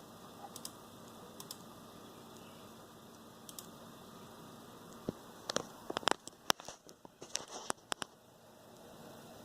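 Razer BlackWidow Ultimate mechanical gaming keyboard keys being pressed: a few scattered key clicks, then a quick irregular run of clicks a little past halfway through.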